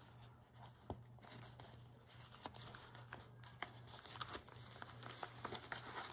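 Clear plastic planner cover being handled as a fabric cover is bent and slid into it: quiet crinkling with scattered small clicks and taps.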